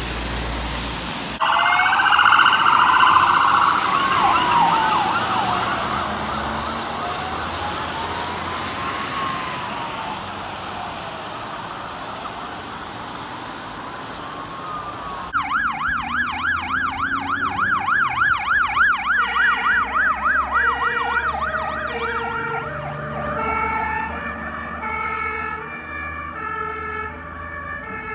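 Emergency vehicle sirens on the road, heard in several short clips. First a slow rising-and-falling wail with a brief fast yelp. After a sudden change about fifteen seconds in comes a rapid yelp, which gives way to an alternating two-tone siren, with traffic noise underneath throughout.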